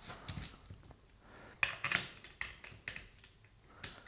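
A scatter of light, irregular clicks and knocks from the plastic and metal body of a Wabco air suspension compressor being handled, as its cylinder is pushed back onto the piston.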